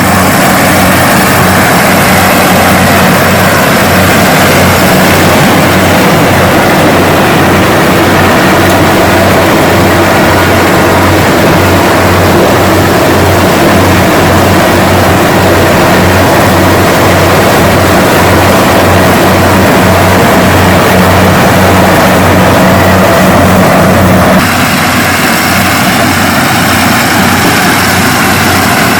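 Kubota DC-70G rice combine harvester running steadily under load, its diesel engine humming low beneath the dense noise of the machinery; the sound shifts and gets slightly quieter about 24 seconds in.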